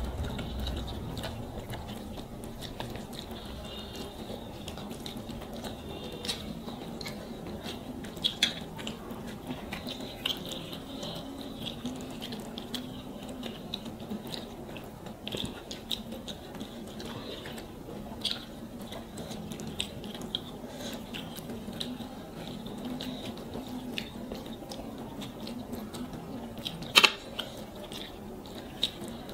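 Close-up eating sounds: chewing, and fingers mixing rice and curry on plates, with scattered small clicks and one louder click near the end. A faint steady low hum runs underneath.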